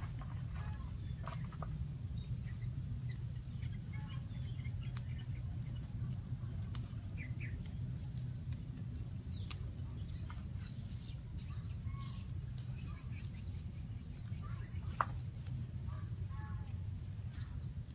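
Outdoor ambience: short scattered bird chirps over a steady low rumble, with occasional sharp clicks, one louder about fifteen seconds in.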